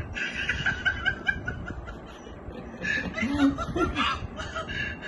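Men snickering and laughing, with a lower chuckle a little after three seconds.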